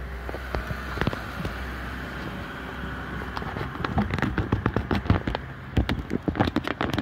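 Crackling and tapping handling noises close to the microphone, sparse at first, then denser and louder from about halfway.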